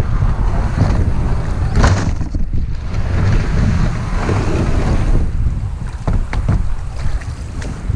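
Wind rumbling on the microphone while a kayak moves over the river, with a few short splashes of water about two seconds in and again near the end.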